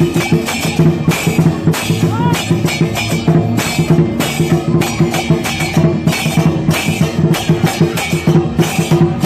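Chinese dragon dance percussion: a large drum beaten with crashing cymbals and a ringing gong in a fast, steady rhythm.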